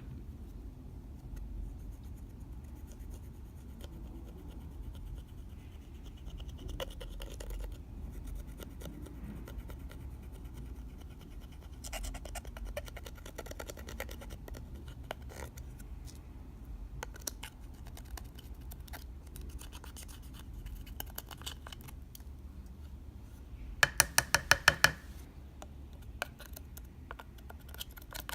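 Clear slime being worked by hand, with small clicks and crackles as it is pressed and stretched, and a quick run of about eight loud clicks near the end.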